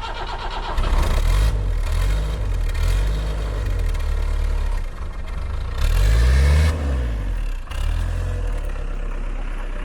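Land Rover Series IIB engine running while the vehicle is driven, the revs rising and falling several times as it pulls away and changes gear.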